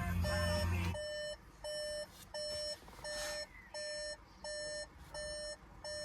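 Skoda Kodiaq's warning chime beeping steadily with the ignition on, a single-pitch beep about three times every two seconds, the chime the car gives when the driver's door is open. A low hum stops about a second in.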